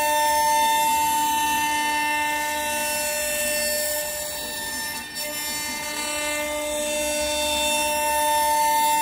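CNC router spindle running with a steady, high, multi-tone whine while its bit cuts a round recess into a wooden panel, over a rough noise of wood being milled. The level dips slightly about four to five seconds in.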